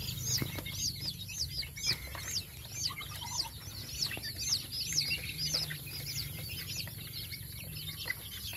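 A brood of young chicks peeping continually, several short high-pitched calls a second from different birds, over a low steady hum.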